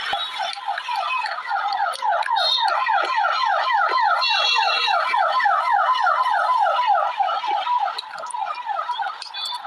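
An electronic alarm sounding a rapidly repeated falling note, about five a second, loudest in the middle stretch.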